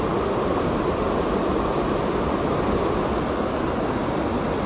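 Steady rushing of high creek water pouring over and around a low-water slab.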